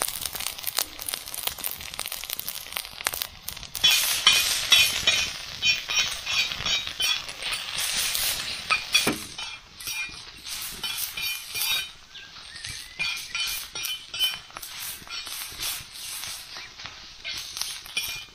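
Metal spoon scraping and clinking against an iron martabak pan as fried rice is stirred and tossed, a dense run of quick scrapes and taps. A fast, high-pitched pulsing sound joins from about four seconds in, drops away briefly around the middle and comes back.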